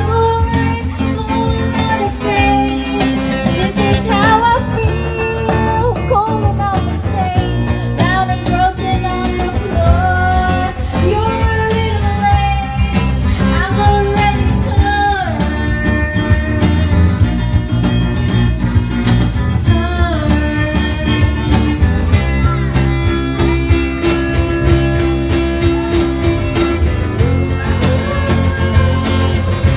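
Live band music: a woman singing into a microphone over strummed acoustic guitar and electric guitar, with a steady low end.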